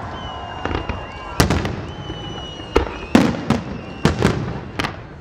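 Aerial fireworks shells bursting with about seven sharp, echoing bangs, most packed close together in the second half, with crackle in between and a thin high whistle in the first half.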